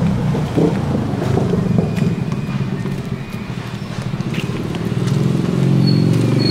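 A motor vehicle's engine running with a low, even pulse, getting louder over the last couple of seconds as it nears.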